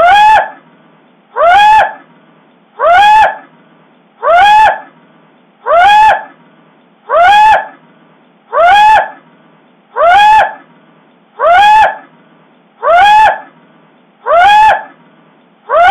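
The same short honk-like call repeated in an identical loop about every second and a half, each call rising in pitch with a bright, buzzy edge.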